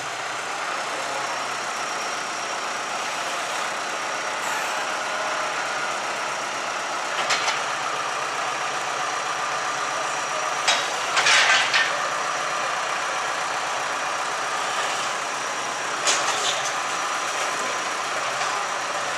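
Large bonfire burning with a steady rushing roar, broken by sharp crackles and pops three times: about 7 seconds in, a cluster around 11 seconds, and again about 16 seconds in.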